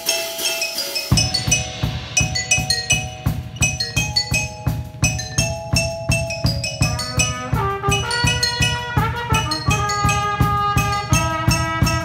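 Marimba playing a melody with a drum kit joining in: a cymbal crash at the start, then a steady bass-drum beat from about a second in under the marimba notes.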